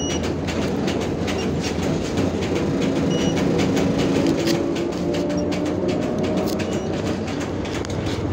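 Cabin sound of a moving trolleybus: the electric traction drive whines in a few tones that shift and climb slightly past the middle, over steady road rumble and frequent rattles from the body and fittings.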